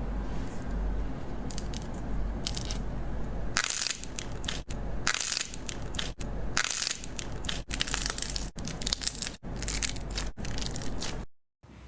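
Slime being squeezed and pressed by hand, crackling and crunching in dense bursts. It runs as a string of short clips with abrupt cuts between them.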